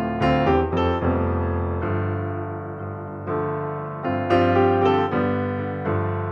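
Background music played on piano: calm sustained chords, with new notes struck every second or so.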